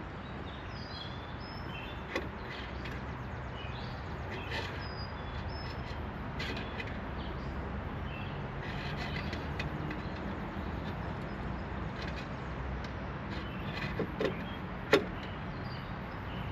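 Scattered light clicks and taps of a metal tool probing inside a stuck Jaguar XJ hood latch, over a steady low hum. The sharpest click comes near the end.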